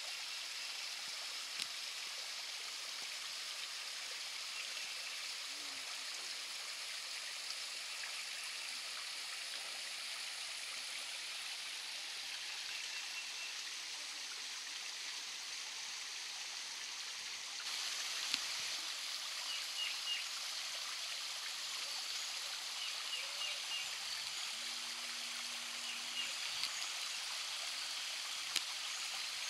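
Creek water running steadily, a little louder after about eighteen seconds, with a few faint high chirps.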